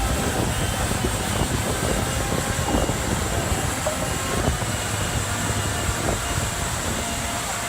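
Heavy machinery running steadily: a low engine hum under a dense mechanical rumble, with a few faint knocks.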